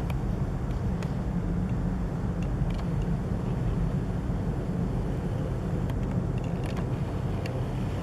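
A steady, unexplained low rumble heard at night, with a few faint clicks scattered through it.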